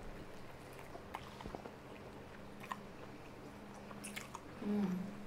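A person chewing a mouthful of a sausage, bacon and egg burrito, with faint scattered soft clicks and crunches. A short low voiced sound comes near the end.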